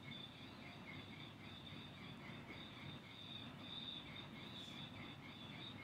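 Faint, high, pulsing insect chirping over quiet room hiss.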